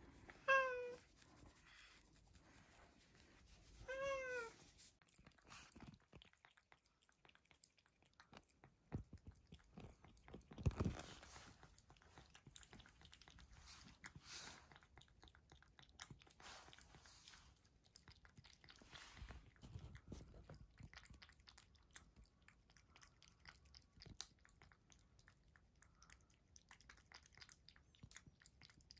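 Ginger tabby cat meows twice, about half a second and four seconds in, then eats soft wet food from a bowl with faint, rapid chewing and licking clicks. A sharp knock sounds about eleven seconds in.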